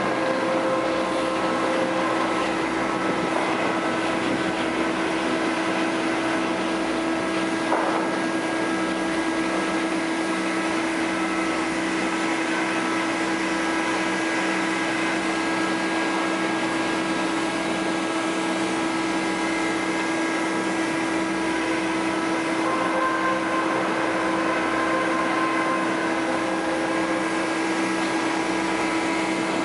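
Sawmill machinery running steadily: a constant whine with several overtones over a mechanical rumble, with one short knock about eight seconds in.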